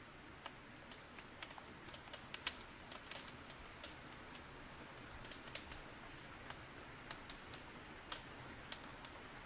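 Small fire crackling: irregular sharp snaps and pops over a faint steady hiss, crowding together about two to three seconds in.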